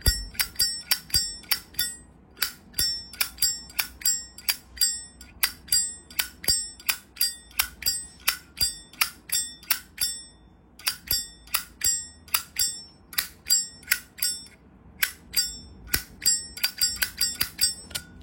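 Vintage Zippo lighter's hinged brass lid being flicked open and snapped shut over and over, about three times a second with a few short pauses. Each stroke is a sharp metallic clink with a bright bell-like ring, a very 'beng' lid sound.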